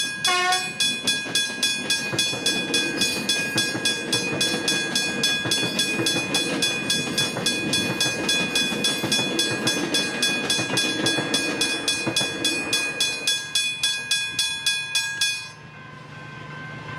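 Westinghouse hybrid level-crossing bell ringing in rapid, even strikes, about three or four a second, over a train rumbling past. The bell stops suddenly about fifteen seconds in.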